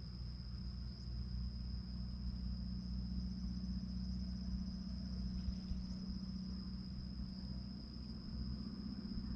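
Steady, high-pitched drone of a cricket, unbroken, over a low constant rumble.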